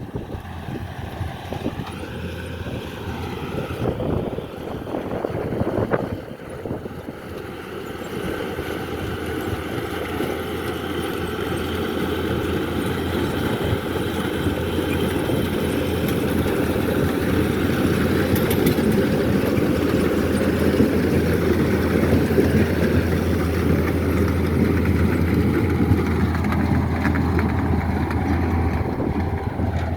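Three-row sugar beet harvester at work: a steady engine drone with a constant low hum, growing gradually louder after the first few seconds.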